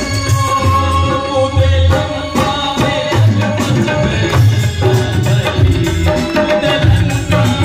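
Live Indian devotional bhajan music, an instrumental passage: hand drums keep a steady rhythm under a held keyboard melody.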